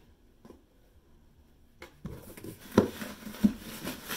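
Near quiet at first. About two seconds in, packaging starts rustling as items are rummaged out of a cardboard delivery box, with two sharp knocks near the end.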